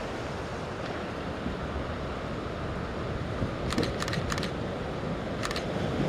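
Steady wind rumble on the microphone over choppy harbour water, with a quick cluster of small clicks about four seconds in and one more near the end.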